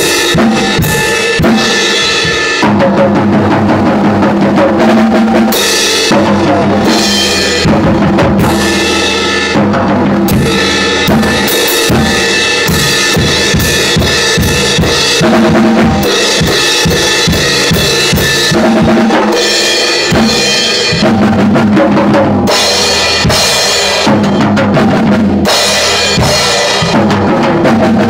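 A drum kit played loud and fast in a continuous beat: kick drum, snare and crashing cymbals, with short breaks in the cymbal wash every few seconds.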